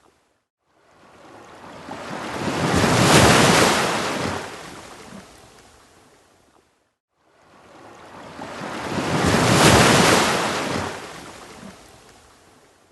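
Ocean waves breaking and washing up a beach, two in turn. Each builds over a few seconds to a rushing peak, then fades away, with a brief dead silence before each one.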